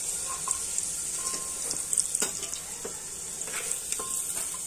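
Potato chunks frying in hot oil in a pressure cooker, with a steady high sizzle. A metal spoon clicks and scrapes against the pot a few times as the golden potatoes are lifted out.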